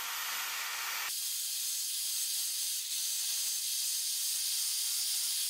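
Small right-angle grinder with a sanding disc abrading truck body paint and sheet metal, a steady high hiss as it feather-edges the paint back from the rust-out. The lower part of the sound drops away about a second in.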